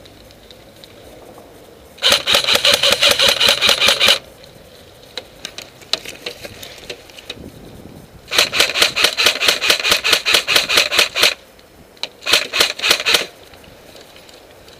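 Airsoft electric gun firing on full auto in three bursts, the second the longest and the last a short one, each a rapid run of about a dozen shots a second.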